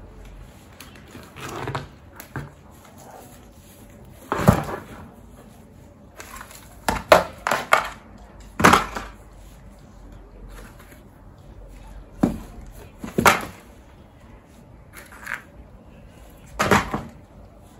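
Plastic flower pots and planter trays knocking and clattering as they are handled, emptied and set down: a string of separate hard knocks, with a quick run of several together about halfway through.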